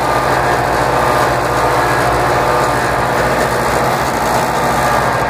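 David Brown 995 tractor's three-cylinder diesel engine running steadily under load as it pulls a three-bottom plow through the soil, heard from inside the cab.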